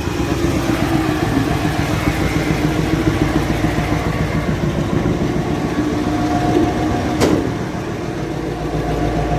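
Caterpillar 988F2 wheel loader's diesel engine running steadily at low speed while its leaking, unseated injectors are checked. A brief sharp hiss about seven seconds in, after which the engine runs a little quieter.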